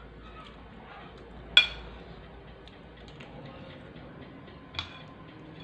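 A spoon clinking against a plate: one sharp clink about a second and a half in and a lighter one near the end, with small ticks between.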